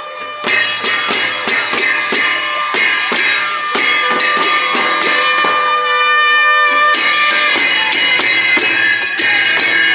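Music with a steady beat of short percussive strokes, about three a second, under held melody notes; the beat thins out briefly just past the middle.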